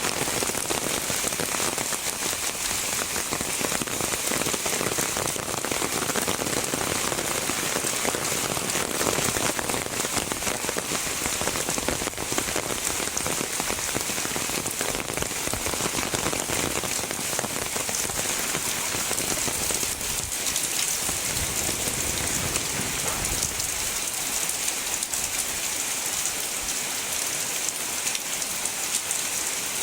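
Heavy rain falling steadily, a dense, even patter of drops hitting surfaces.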